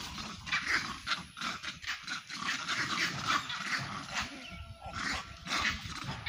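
Monkeys giving harsh, rapid calls, many short cries in quick succession, the sound of males fighting over a female.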